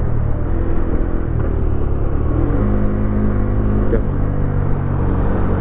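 Bajaj Dominar 250's single-cylinder engine, ridden while slowing down through the gears; its note changes pitch in steps several times as it is downshifted toward first gear. Wind and road rush on the helmet-camera microphone underneath.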